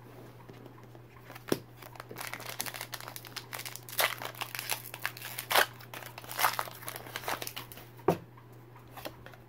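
Foil wrapper of a Pokémon Rebel Clash booster pack crinkling and tearing as it is opened by hand: several seconds of irregular sharp crackles.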